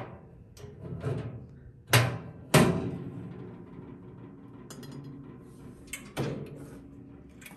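Curved sliding metal doors on an old enamelled kitchen stove's warming cabinet being worked open and shut: several sharp metallic clanks that ring briefly, the loudest two about two and two and a half seconds in, another about six seconds in.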